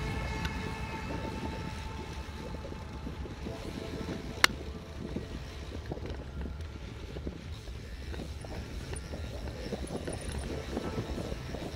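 Mountain bike riding slowly over a rough dirt track: a low steady rumble with a continual light rattle and crackle from the bike, and one sharp click about four and a half seconds in. Electronic music fades out in the first second.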